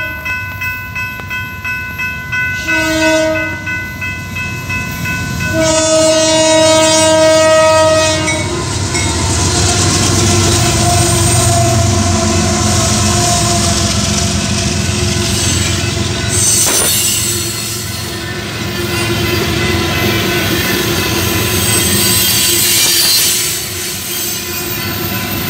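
Two CN diesel freight locomotives sound their air horn for the crossing: a short blast about three seconds in, then a long one, over a crossing bell ringing. The locomotives then pass close by with a heavy engine rumble, followed by freight cars rolling past with wheels clacking over the rail joints.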